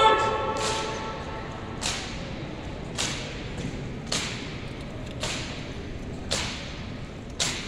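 A JROTC armed drill team marching in step on a concrete floor, their heels striking in unison in sharp beats about once a second that echo through a large hall.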